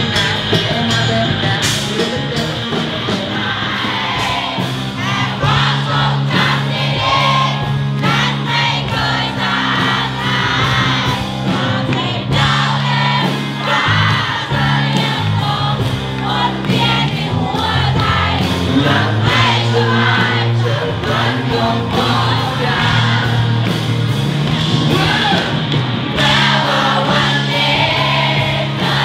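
Live band music with a large crowd singing along and shouting.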